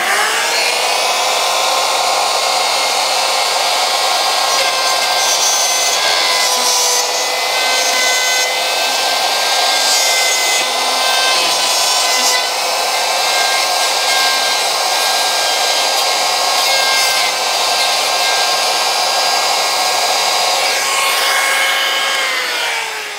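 Handheld router cutting a recess in a wooden bowl through a clear plastic template, guided by a bushing, to take a pewa inlay over a crack. The motor comes up to speed with a quick rise in pitch, runs with a steady high whine under the cutting noise, and is switched off near the end, its pitch falling as it winds down.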